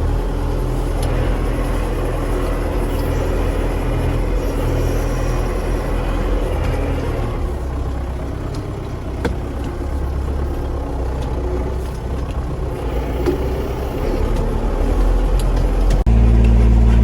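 A vehicle engine running steadily, a low drone with a few light knocks. Near the end it suddenly gets louder and steadier.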